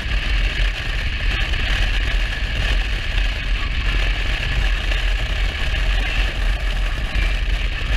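Harley-Davidson V-twin motorcycle riding at highway speed: the engine running steadily under heavy wind rush buffeting the microphone.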